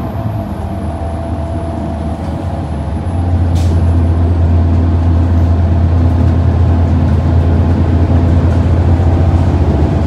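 Low, steady drone of a 2023 New Flyer Xcelsior XD40 transit bus under way, its Cummins L9 diesel engine heard from inside the passenger cabin, growing louder about three seconds in.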